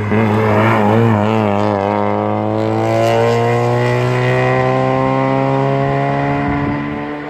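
Alfa Romeo hillclimb car's engine pulling hard out of a hairpin and accelerating away uphill. Its pitch wavers for the first couple of seconds at the exit, then climbs steadily as the car draws away, fading near the end.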